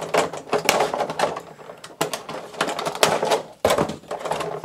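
Plastic toy packaging being handled, with quick irregular clicks, snaps and crinkling as action figures are worked loose from their tray and ties.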